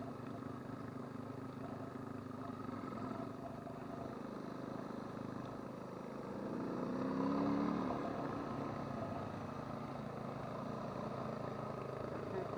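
Adventure motorcycle engine running while riding along a dirt track. Its revs rise and it gets louder about six seconds in, then it eases back.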